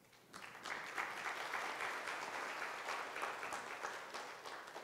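An audience applauding: the clapping starts a moment in and dies away near the end.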